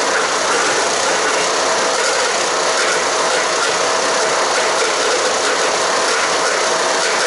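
Haige HG-15HP-GGS 15-horsepower wood chipper running and chipping cedar and cypress branches, a loud, steady, unbroken noise of wood being ground up over the engine.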